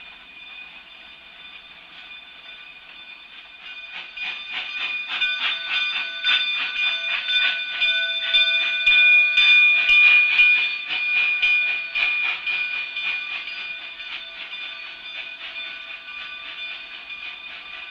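K-36 2-8-2 narrow-gauge steam locomotive No. 484 pulling out with its train. Its exhaust chuffs come in a quick rhythm that grows louder from about four seconds in, is loudest around ten seconds in, and then fades.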